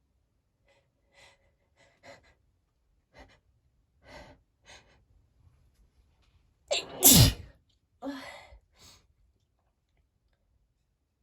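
A person's sneeze set off by perfume. About six faint, short breaths build up over the first few seconds, then one loud, wet sneeze comes about seven seconds in, followed by two shorter breathy exhales.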